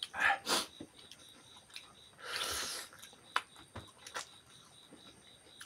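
Close-up mouth sounds of people eating with their hands: wet chewing clicks and smacks, two short breathy sounds at the start, and a longer breathy rush a little over two seconds in.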